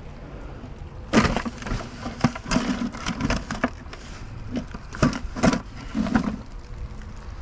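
A string of irregular crunches and knocks from moving about in dry leaves and sticks while carrying a plastic bucket that holds a rusty metal find.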